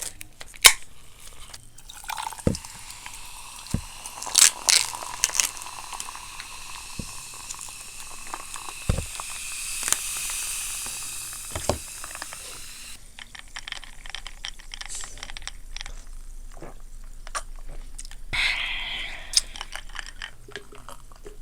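Takeout food containers and packaging being handled: scattered clicks and taps, with a steady hiss from about two seconds in until about thirteen seconds in.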